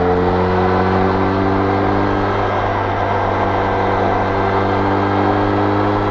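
Benelli Leoncino 500's parallel-twin engine through its stock exhaust, pulling hard in one gear at highway speed, its pitch creeping slowly upward.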